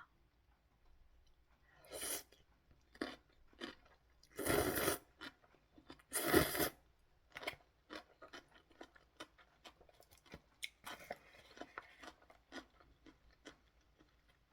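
Close-miked eating of instant ramen: a person chewing, with two louder half-second noisy sounds near the middle, then a run of small wet mouth clicks.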